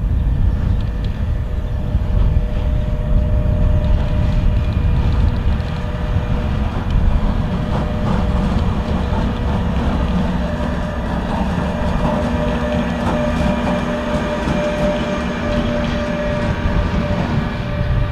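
Bombardier TRAXX electric locomotive running light and passing close by. Its traction equipment gives a steady whine at several fixed pitches over a low rumble, and its wheels click over rail joints around the middle as it goes past.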